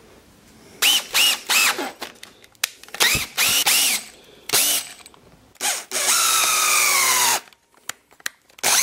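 A power drill driving a homemade wood-screw tap (a wood screw with sanded flats as cutting teeth) into a pilot hole in oak, cutting a thread. It runs in a string of short trigger bursts, the motor whine rising and falling with each, then one longer run of about a second and a half whose pitch sinks, and another short burst at the end.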